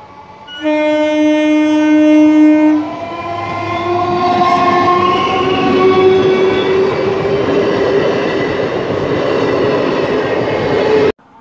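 A Kolkata suburban local train, an electric multiple unit, sounds its horn in one blast of about two seconds that stops sharply. The train then passes close by with a loud, steady rumble and wheel clatter, under a faint whine that rises slowly in pitch. The sound cuts off suddenly near the end.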